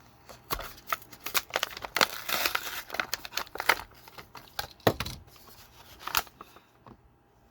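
A diecast toy car's collector box being opened by hand: irregular crinkling and rustling of the packaging with small clicks and taps, and a louder knock about five seconds in as the car or box is handled.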